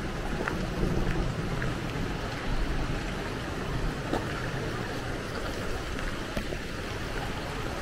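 Shallow water running along a road surface: a steady rushing wash, with a few faint, irregular ticks.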